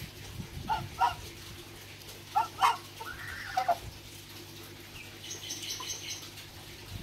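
Young geese honking: a few short calls in the first three seconds, then a longer call that rises and falls a little after three seconds in.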